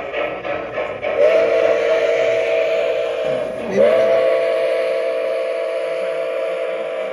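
Sound system of an O-scale Nickel Plate Road 765 Berkshire steam locomotive model blowing its chime whistle. There are two long blasts, the first about two seconds and the second about three, each swooping up into a steady chord of several notes.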